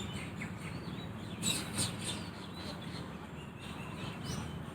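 Birds chirping intermittently in the background over a steady low rumble, with a few short, brighter chirps about a second and a half in and a quick run of small chirps later.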